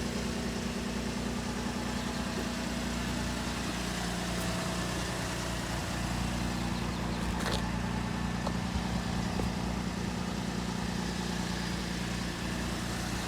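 Lexus IS250's 2.5-litre V6 idling steadily, its hum dropping slightly in pitch about four seconds in.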